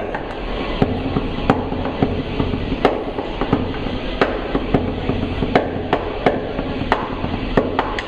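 Drumsticks striking a drum in a quick, uneven pattern of sharp hits, with a louder accent a little more than once a second, over a steady low hum.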